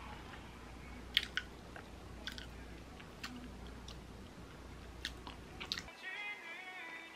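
A person biting and chewing a blueberry Greek-yogurt bagel, with soft mouth clicks every second or so. Gentle plucked-string music comes in near the end.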